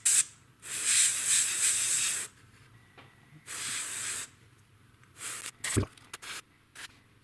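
Airbrush spraying in two main bursts of hiss, the first about a second and a half long and the second under a second. A few handling ticks and a single knock follow near the end.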